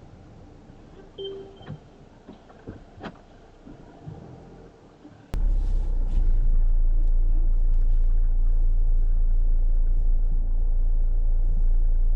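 Steady low rumble of a van on the move, heard from inside the cabin. It starts abruptly about five seconds in, after a quieter stretch with a few scattered clicks.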